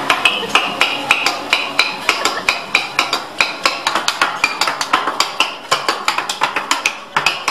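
Teppanyaki chef's metal spatula and seasoning shaker clacking rhythmically against each other and the steel griddle, about three or four sharp, ringing strikes a second.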